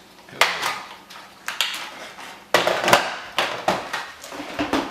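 Irregular plastic clicks and knocks of a Nerf blaster being put together by hand, about a dozen sharp snaps and taps, some in quick pairs.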